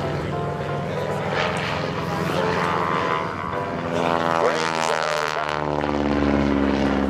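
Stearman PT-17 biplane's seven-cylinder radial engine and propeller droning in flight, the pitch dropping clearly in the second half as the plane passes by.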